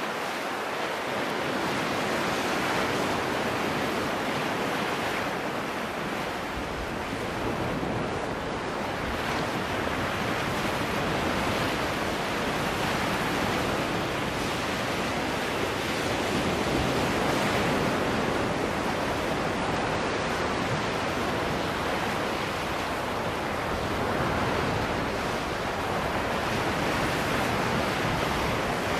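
Small sea waves breaking and washing over shoreline rocks, a steady surf wash that swells and eases every few seconds.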